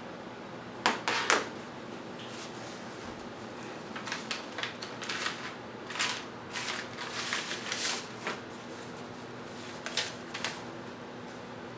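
Two sharp knocks about a second in as a phone is set down on a stone countertop, then crisp rustling and crackling of paper as an envelope is opened and a folded letter is unfolded.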